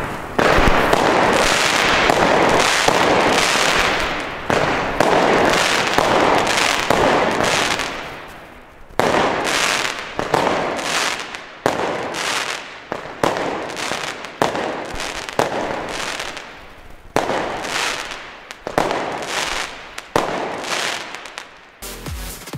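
Consumer fireworks battery firing aerial shots. For the first eight seconds or so the shots come in a dense, overlapping run; after that they come as separate bangs about once a second, each trailing off.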